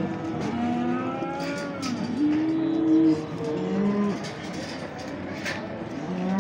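Cattle lowing: a string of long, overlapping moos at different pitches, with a few sharp knocks in between.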